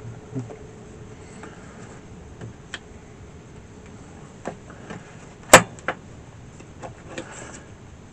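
Handling of a hand crimping tool and a wire connector: a few small clicks and one loud, sharp click about five and a half seconds in.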